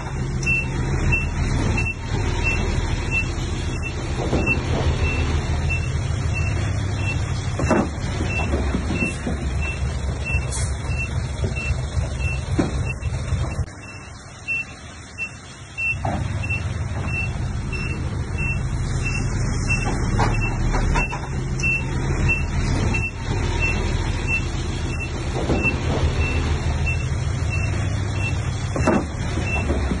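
Heavy diesel earthmoving machinery working, the engine running steadily under load, with a reversing alarm beeping at an even pace over it. The engine noise drops for about two seconds midway, while the beeping carries on, and there are a few short knocks.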